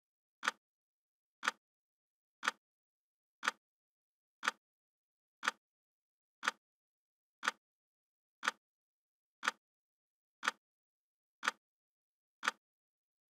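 Clock ticking sound of a countdown timer: a short, sharp tick exactly once a second, with silence between ticks.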